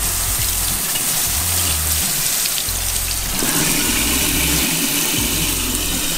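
Water running from a kitchen faucet and splashing into a sink as an oiled cotton-gauze cone air filter is rinsed under it, a steady rush of water.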